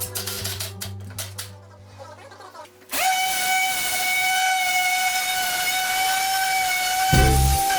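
Background music: a low sustained chord fades out, then a long held high note starts suddenly about three seconds in, with deep bass notes returning near the end.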